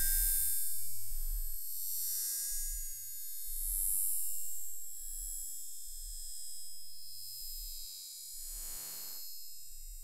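Aftermath of a glass beer bottle imploding under water pressure in a test chamber, played back slowed down: deep thuds about once a second, with faint ringing tones over them.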